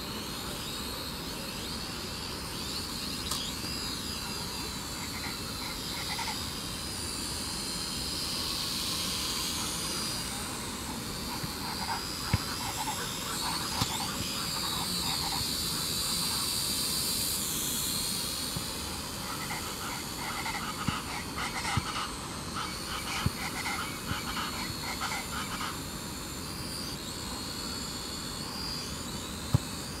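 Quadcopter drone's propellers whining as it flies and hovers, the pitch wavering up and down as it manoeuvres, with a few short knocks at intervals.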